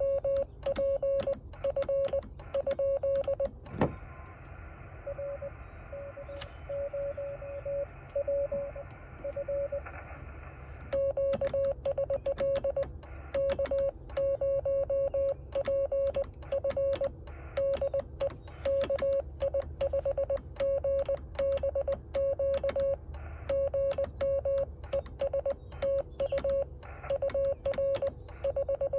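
Morse code on a Yaesu FT-817 transceiver: a steady tone of about 600 Hz keyed on and off in dots and dashes. About four seconds in there is a click, and receiver hiss comes up under a weaker keyed signal, a station being copied. About eleven seconds in the hiss drops out and the strong, clean keying resumes as the operator sends again.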